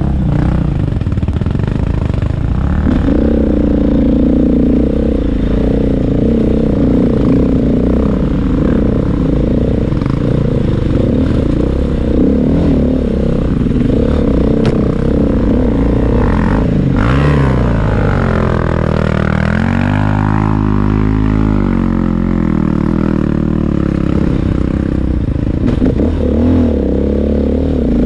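Off-road dirt bike engine running under load, its revs rising and falling with the throttle, with a clear drop and climb in engine pitch about two thirds of the way through. The bike rattles as it rides over the rocky trail.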